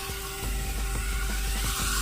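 Music over a battery-powered toy train engine running on plastic track, its small electric motor whirring steadily and its wheels clicking.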